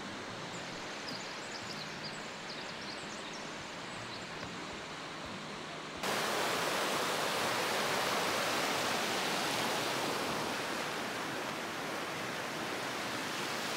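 Steady outdoor noise with a few faint high chirps. About six seconds in it changes abruptly to a louder, brighter hiss that carries on to the end.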